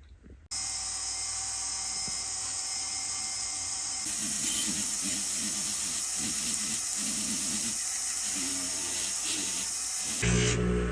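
Jeweller's electric polishing motor running steadily, with a high whirring hiss, as a soldered gold ring stack is polished. The sound starts suddenly and changes about four seconds in.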